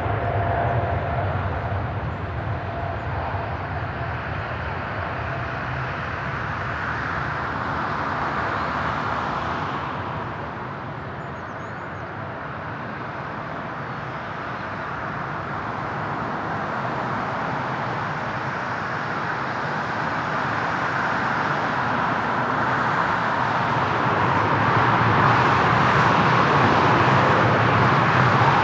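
Jet engine noise from a Boeing 777F freighter's GE90 engines during its takeoff, a steady rush that eases and then swells again. Near the end a second airliner's engines grow louder as it comes in to land.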